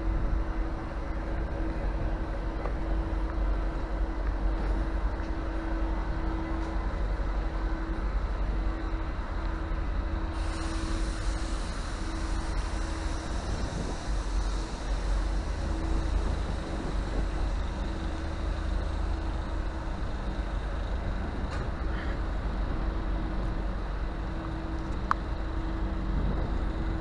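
V/Line N class diesel locomotive idling at the platform: a steady low engine rumble with a constant hum. A hiss joins it about ten seconds in and holds.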